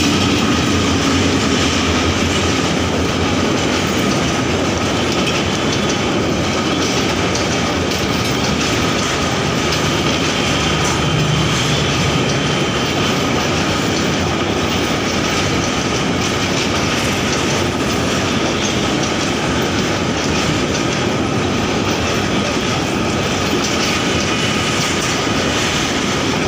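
A train running steadily, wheels on the rails making a constant rumble with a faint clickety-clack and a thin steady whine.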